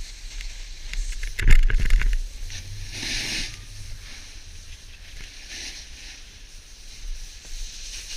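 Snowboard sliding over snow: a hissing scrape of the board on the snow that swells sharply about a second and a half in and again around three seconds, over a low rumble.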